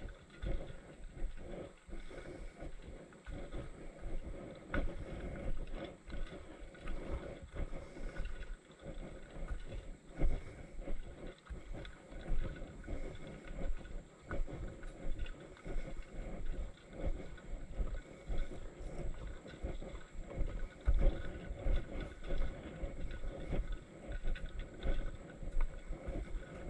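Footsteps of a hiker walking along a trail, a run of uneven thuds, with wind and handling noise rumbling on the microphone.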